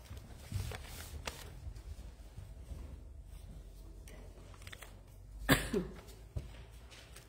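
Handling noise from a handheld microphone as it is lifted off its stand and carried: soft rustles and small knocks, with one sharp bump about five and a half seconds in, followed by a brief falling squeak.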